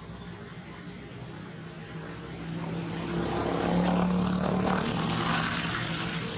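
A steady engine drone passing by, growing louder to its peak about four seconds in and then easing off.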